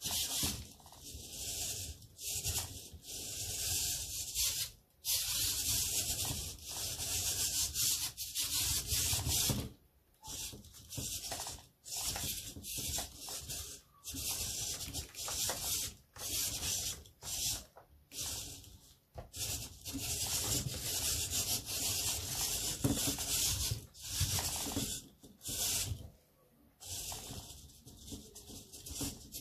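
Hobby servo motors in a SpotMicro quadruped robot's legs whirring as the body poses and rises and lowers, in stop-start spells of one to a few seconds with short pauses between moves.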